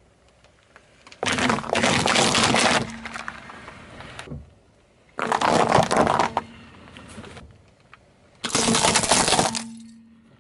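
A car tyre rolling over and crushing objects on asphalt three separate times: a row of paper cups, a pile of small white candy pellets, then brittle plastic toys. Each crushing is a loud bout of crunching and cracking lasting a second or two, with short quiet gaps in between.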